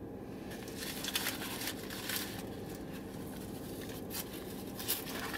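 Paper wrapper of a fast-food tortilla wrap being torn off and crinkled, in several short rustling bursts.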